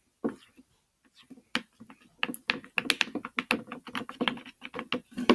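Wooden craft stick stirring sticky glue slime in a plastic bowl: a run of small wet clicks and squelches, sparse at first and quick and dense from about two seconds in.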